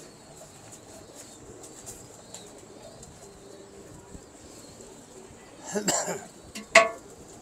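Domestic pigeons cooing softly, with two short louder sounds near the end.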